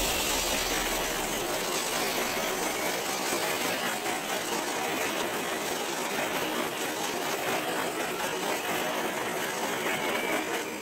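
Radio-controlled crawler truck driving in circles on ice: its small electric motor whirring and its tyres scrabbling over the icy surface, a steady noise.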